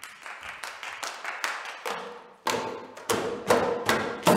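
A group of performers clapping a quick hand-clap rhythm, about four or five claps a second, fading in at the start. About halfway through it gets louder, with heavier thuds among the claps and a held tone underneath.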